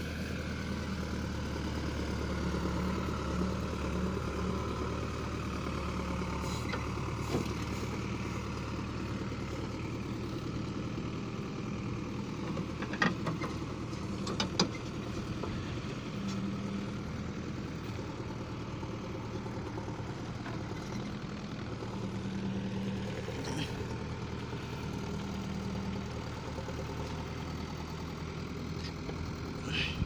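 JCB 3DX backhoe loader's diesel engine running steadily while the backhoe digs soil and swings a loaded bucket, with a few sharp knocks about halfway through.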